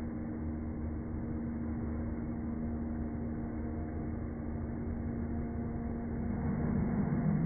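A motor hums steadily at one pitch. Near the end a pug growls briefly, louder than the hum.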